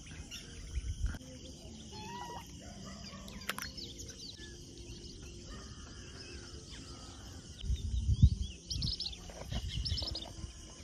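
Wild birds chirping and calling over a steady high hiss of outdoor ambience. A short burst of low rumbling comes about eight seconds in and is the loudest sound.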